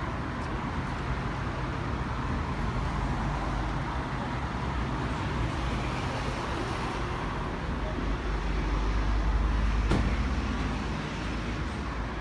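Vehicle and traffic noise: a low engine rumble that swells about eight seconds in and eases off near the end, with a single sharp knock about ten seconds in.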